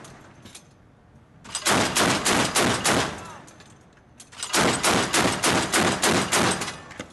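Mk 38 25 mm naval gun (M242 Bushmaster chain gun) firing two bursts of evenly spaced shots, about four to five a second. The first burst starts about a second and a half in and the second about four and a half seconds in, each lasting about two seconds.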